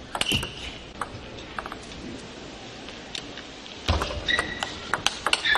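Table tennis rally: sharp clicks of the ball striking the rackets and the table, with short squeaks of shoes on the court floor. The background gets louder about four seconds in.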